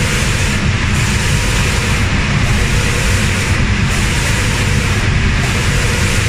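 Automatic cabinet-door spray painting machine running: a loud, steady hiss and rumble from the reciprocating spray guns and the booth's air handling. The highest part of the hiss drops away briefly about every second and a half.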